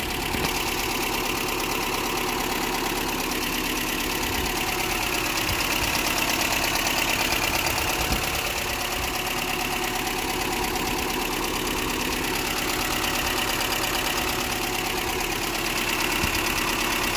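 Toyota 22RE 2.4-litre four-cylinder fuel-injected engine idling warm, steady. It carries the running noise the owner hears once the engine has warmed up, which he guesses may be ignition timing being off.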